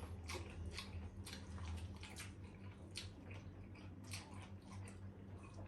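Faint wet chewing and mouth clicks of people eating saucy spare ribs by hand, a scatter of short irregular smacks over a steady low hum.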